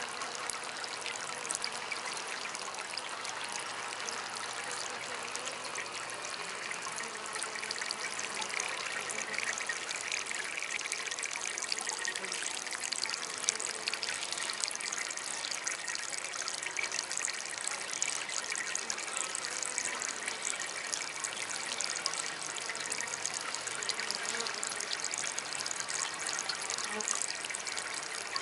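Water trickling and splashing steadily from a small homemade fountain.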